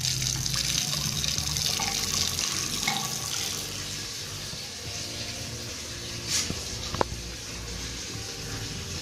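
Basin tap running water into a wash-hand basin and down its drain, loudest in the first three and a half seconds, with a sharp click about seven seconds in. The water is being run to test a newly fitted bottle trap for leaks.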